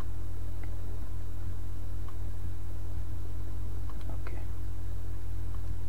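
Steady low electrical hum with a few faint computer-mouse clicks, two of them close together about four seconds in.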